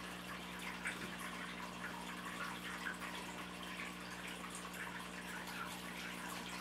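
Steady low electrical hum with a faint hiss, and a few soft small ticks over it: room tone in a pause between speech.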